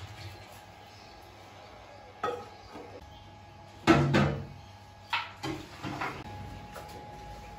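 Metal utensils and dishes clanking, a few separate sharp clatters with the loudest a quick cluster of strikes about four seconds in.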